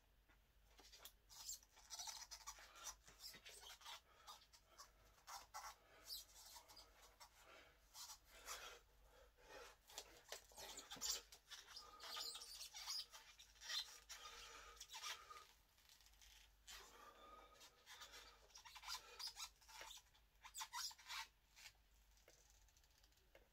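Faint, irregular rubbing and rustling with small clicks from hands and wraps gripping a short steel bar as it is strained in a bending attempt.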